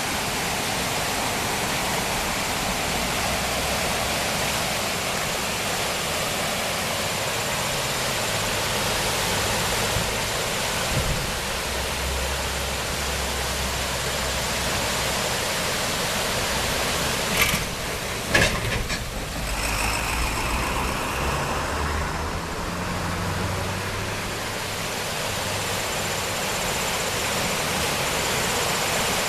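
Swollen Walloomsac River in flood, its water rushing steadily. A motor vehicle's engine hums low through the middle, and two sharp knocks come a little past halfway.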